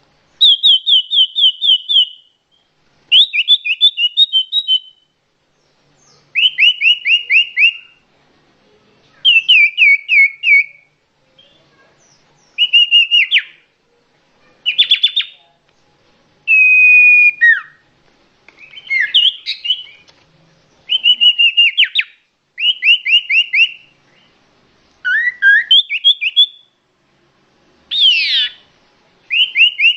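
A songbird singing loud phrases of rapid repeated notes, about a dozen phrases each lasting one to two seconds with short pauses between them, the pattern of notes changing from phrase to phrase.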